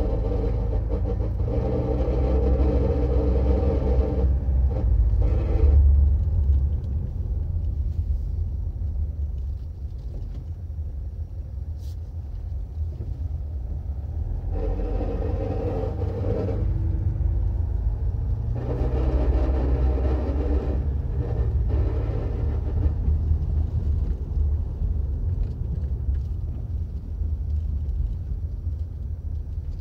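Metallic noise from a moving part of a 2013 Land Rover Freelander 2 SD4, coming and going in three spells of a few seconds over the low rumble of the car driving. The noise is undiagnosed: it comes under gentle to medium acceleration and braking, and the owner finds the engine and turbo sound fine and rules out a split hose.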